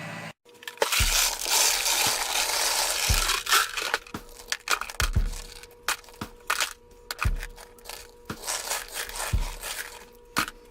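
Intro music with a deep drum hit about every two seconds under loud crackling noise, with two steady held tones through the middle.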